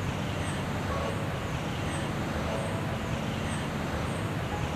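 Steady outdoor background noise: a low rumble and hiss of the kind distant road traffic makes, with faint short high chirps now and then.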